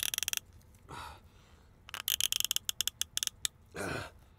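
Cap of a rice-wine bottle being twisted open: quick trains of ratcheting clicks, a short one at the start and a longer one from about two to three and a half seconds in.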